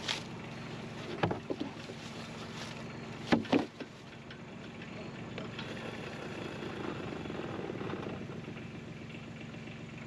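Portable bandsaw sawmill's engine running steadily, its band wheel turning with the blade broken off. Two short clusters of sharp knocks, about a second in and again around three and a half seconds in.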